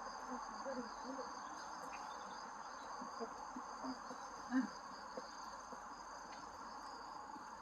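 Steady high-pitched chirring of crickets in a continuous outdoor insect chorus, with a few faint low murmurs in the background.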